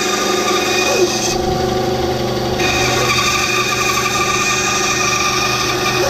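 Bandsaw running and cutting a series of slots into a thick wooden board: a steady motor hum under the hiss of the blade. The high hiss drops away for about a second, about a second and a half in.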